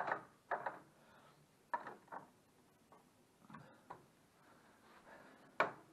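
A handful of light, irregular clicks and knocks, about seven in all, with the sharpest one near the end.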